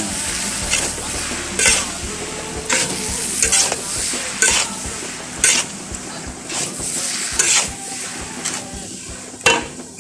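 Fried noodles sizzling in a large steel wok while being stirred and tossed, with the stirring tool scraping across the metal about once a second. The sizzle thins near the end, just before a last loud scrape.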